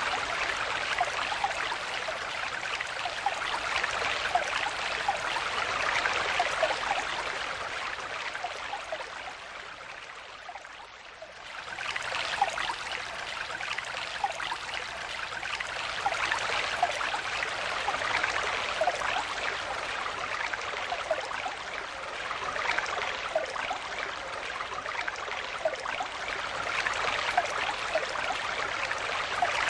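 Small stream flowing over stones, a steady babble of rushing water with little bubbling gurgles. About ten seconds in it fades quieter for a few seconds, then comes back suddenly.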